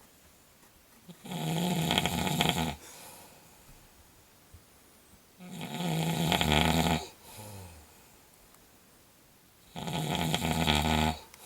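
A woman snoring in sleep: three long, loud snores about four seconds apart, each lasting about a second and a half, with softer breaths between them.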